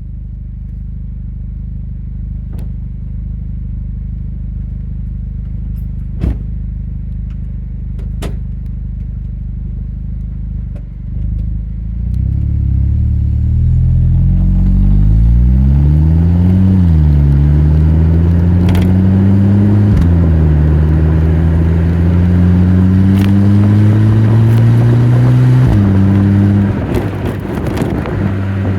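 Stock Volkswagen Golf GTI Mk5 with its 2.0-litre turbocharged four-cylinder, running steadily with a few sharp clicks, then accelerating hard: the engine note climbs, drops quickly twice as the DSG gearbox upshifts, climbs again, and eases off near the end.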